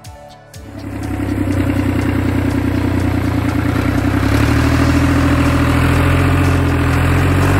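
Fiat 45-66 tractor's diesel engine running steadily and loud. It comes in about half a second in and builds over the next second.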